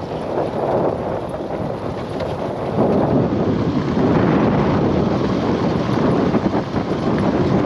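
Loud, gusty wind noise on the microphone.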